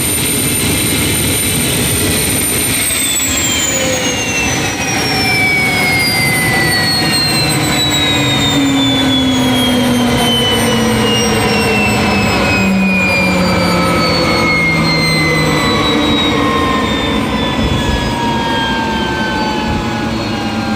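Jet engine running loud with a turbine whine that holds steady for about the first three seconds, then falls steadily in pitch: the engine spooling down.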